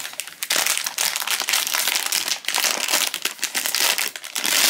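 Silver foil blind-box bag crinkling and crackling as it is handled and worked open by hand, a dense run of quick crackles.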